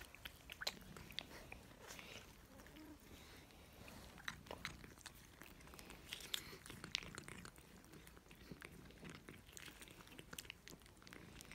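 Faint wet clicks and smacks of cats licking a lickable paste treat from a squeeze tube held in a hand, scattered unevenly throughout.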